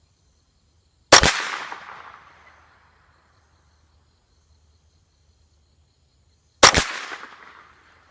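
Two single shots from a Ruger 10/22 Takedown .22 LR semi-automatic rifle, about five and a half seconds apart, each a sharp crack followed by an echo that fades over a second or so.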